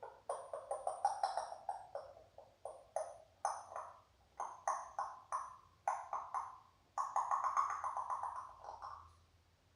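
A pet parrot making a run of short, sharp clicking and popping sounds, about two or three a second, with a longer drawn-out call about seven seconds in.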